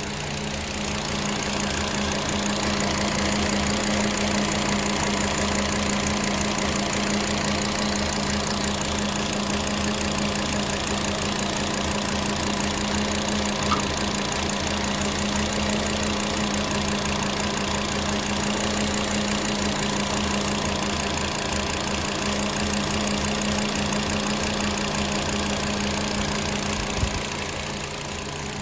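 VW 2.5-litre inline five-cylinder engine idling steadily with a cylinder misfire, caused by a fuel injector o-ring that is not sealing. A brief knock sounds near the end.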